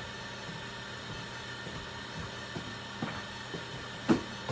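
Steady electrical hum and hiss of running clinic equipment, with a few faint ticks and one sharp knock about four seconds in.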